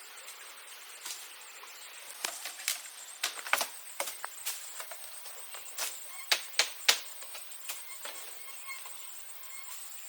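Irregular sharp knocks and taps, a dozen or so spread over several seconds, with three louder strikes close together a little past the middle.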